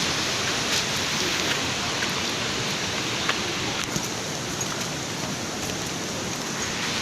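Steady hiss of water, even throughout, with a few faint ticks scattered through it.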